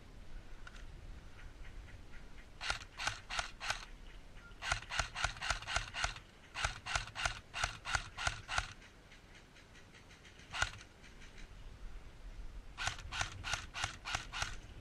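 Airsoft rifle firing in bursts of rapid, evenly spaced shots, about six or seven a second, with a single shot between the bursts.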